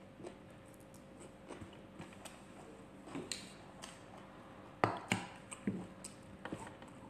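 Close-up eating by hand: chewing and mouth sounds with scattered small clicks. A sharper knock of a bowl against the table comes about five seconds in, followed by a few lighter knocks.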